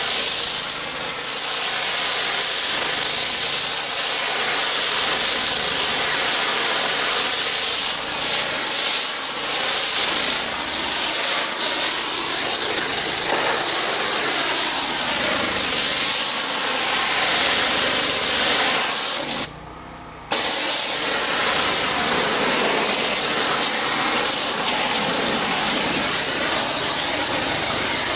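Pressure washer spraying water onto a plastic tarp: a loud, steady hiss of the jet that breaks off for under a second about two-thirds of the way in.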